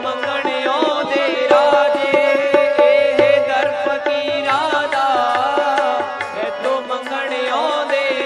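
Music of a Punjabi devotional song: a held drone note under a wavering melody line, with a quick, steady hand-drum beat.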